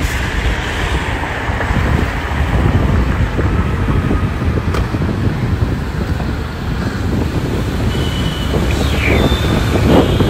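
Wind buffeting the microphone on a moving motorbike, with engine and road traffic running underneath.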